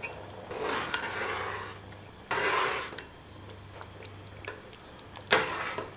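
Metal ladle stirring rice in coconut milk in a large aluminium pot, several slow strokes of scraping and sloshing against the pot, the loudest coming suddenly about five seconds in. The rice is simmering on a medium flame while the coconut milk reduces.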